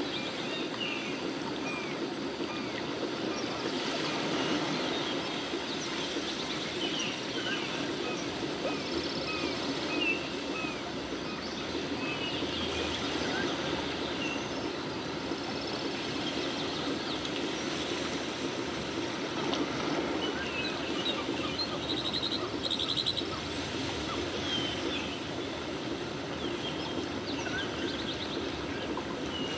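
Small birds chirping in short, frequent calls over a steady rushing background noise, with a brief rapid trill about three-quarters of the way through.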